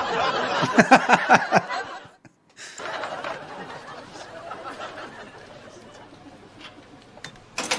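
A man laughing heartily in several loud bursts for the first two seconds, then a sudden cut. After it, quieter canteen background with faint scattered clatter.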